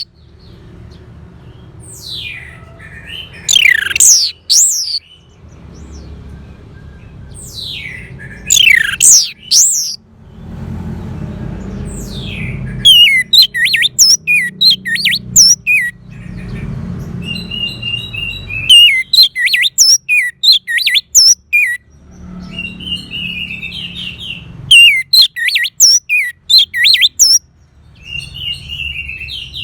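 Orange-headed thrush singing: a few loud, falling whistled sweeps, then, from about halfway, fast runs of varied quick notes.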